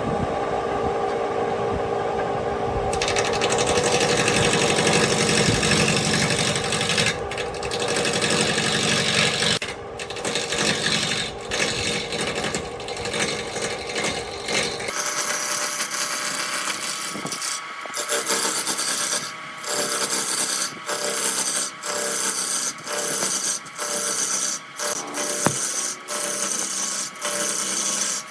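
Wood lathe running with a turning tool scraping into the spinning wood, a continuous rough cutting noise. About halfway through the sound changes abruptly and becomes a run of short cuts broken by brief gaps, roughly one a second.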